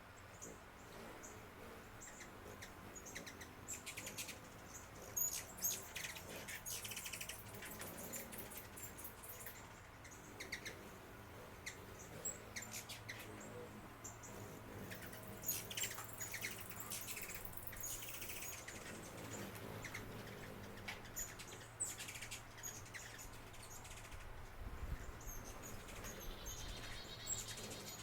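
Small birds chirping: short, very high chirps coming in scattered clusters every few seconds, over a faint steady low hum.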